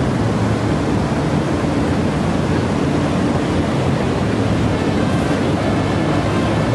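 Ocean surf breaking and washing up a flooded beach: a steady, unbroken rush of noise. The waves are larger than normal, raised by a hurricane swell.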